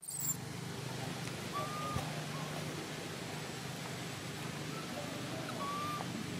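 Steady outdoor background with a constant low hum and hiss, and two short high whistled calls, about a second and a half in and again near the end.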